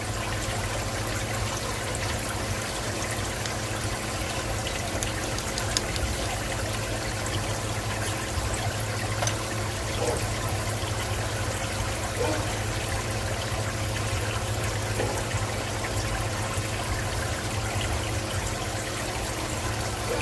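Steady trickle of running water in an aquarium, with a low steady hum: the tank's filter or pump circulating the water.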